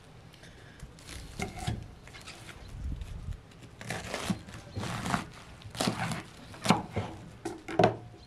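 A knife cutting through a raw head of white cabbage on a wooden chopping board: a series of irregular crisp crunches as the leaves split, the sharpest ones near the end.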